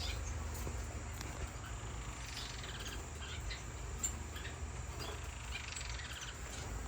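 Small caged finches chirping and calling sporadically, short faint chirps scattered through, over a steady low hum.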